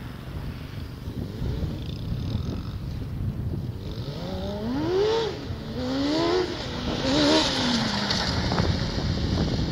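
Honda CBR600 inline-four motorcycle engine in a go-kart, faint at first, then revving hard as the kart comes closer. Its pitch climbs and drops back three times in quick succession from about four seconds in.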